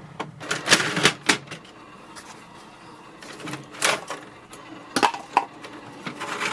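Plastic paper tray of an inkjet printer being handled while A4 sheets are loaded: scattered clicks and rustles, in small clusters about a second in, near four and five seconds, and again near the end.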